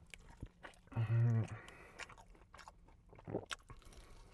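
A person chewing and biting into crispy fried chicken close to the microphone, with soft crunches and wet mouth clicks. About a second in there is a short hum of the voice.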